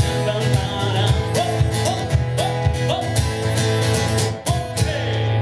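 Amplified acoustic guitar strummed in a steady rhythm, with short repeated sung notes that rise and fall over it.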